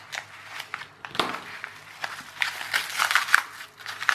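Plastic bubble-wrap pouch crinkling as it is handled, with irregular crackles that grow busier in the second half.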